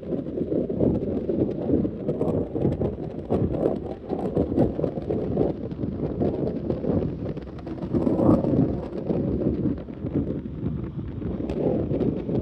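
Wind buffeting the microphone: a loud, gusty rumble that rises and falls, with a stronger gust about eight seconds in.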